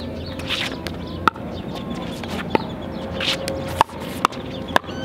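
Pickleball rally: sharp pops of a hard plastic ball struck by paddles, about one every second and a quarter, then three quicker hits near the end.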